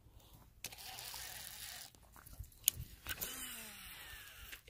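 Fishing reel during a cast and retrieve: line hissing off the spool for about a second, a sharp click, then a second stretch of reel whirring that falls in pitch.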